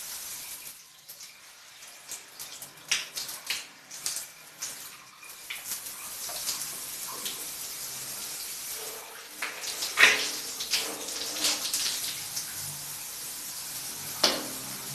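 Shower water falling and splashing unevenly as someone bathes under it, with sharp splashes now and then, the loudest about ten seconds in.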